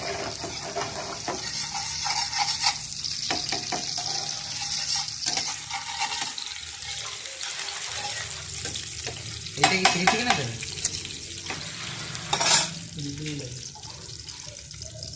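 Chopped garlic deep-frying in hot oil, a steady sizzle as it is stirred in the pan. A utensil knocks and scrapes against the pan in a short cluster about ten seconds in and once more near the end.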